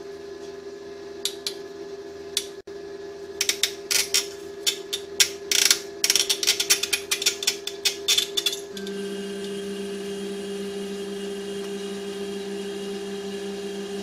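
Irregular sharp metallic clicks and clinks from a small hand tool worked on a part clamped in a bench vise. They come a few at first, then thick and fast for about five seconds, and stop just before 9 s. A steady hum runs underneath.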